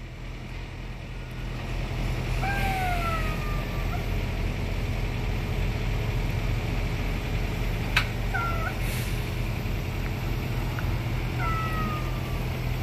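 Semi truck's diesel engine running as the tractor-trailer pulls forward, growing louder about two seconds in. High squeals that slide down in pitch come over it around three seconds in and again near the end, with a sharp click about eight seconds in.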